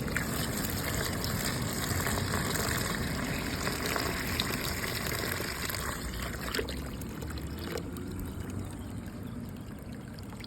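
Sediment-laden flush water from an electric water heater's drain hose pouring into a plastic tub in a steady stream, easing off a little after about six seconds.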